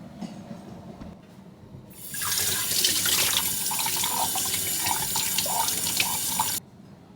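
Water running from a tap, starting about two seconds in and cutting off suddenly near the end.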